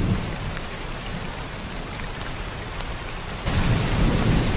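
Rain sound effect: steady rainfall with scattered drips over a low rumble of thunder, growing louder about three and a half seconds in.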